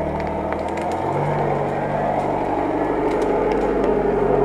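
UAZ-469 off-road vehicle's engine pulling under load as it crawls close past over rough ground; the revs step up about a second in and it grows louder. Scattered sharp clicks and cracks ride over the engine.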